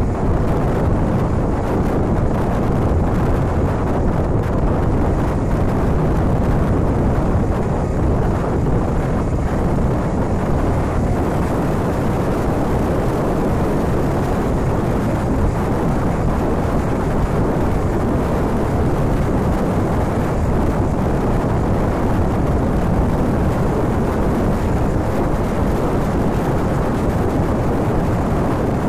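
Steady rush of wind and engine noise from a Honda VTR250's 250 cc V-twin motorcycle cruising at road speed, picked up by a phone mounted on its handlebars.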